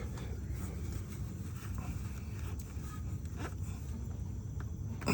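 Faint scattered taps and clicks of things being handled, over a steady low rumble.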